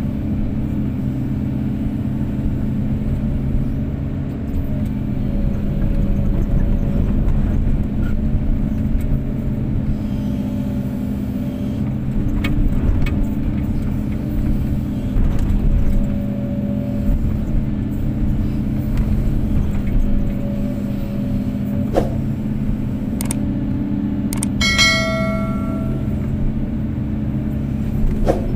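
Kobelco SK250-8 excavator's diesel engine running steadily, with a few sharp knocks and, late on, a brief metallic ring lasting about a second.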